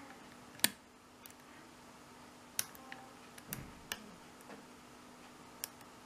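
Zone 5-pin mortice cylinder lock being single-pin picked with a Peterson short hook and tension wrench: about half a dozen small, sharp metallic clicks, scattered and irregular, as the pick lifts the pins one by one. The loudest click comes less than a second in.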